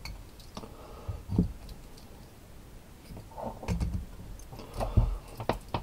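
Handling noise of a soldering iron handpiece and its cable being moved and set into its wire holder stand, with a few soft knocks and clicks.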